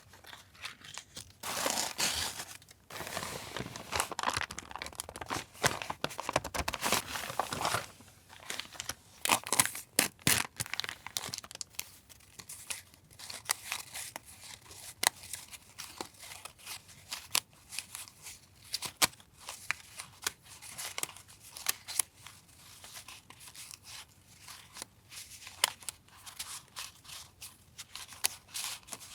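Paper and packaging being handled: dense crinkling and tearing for several seconds, then scattered light taps and rustles as paper pieces are picked up and laid down.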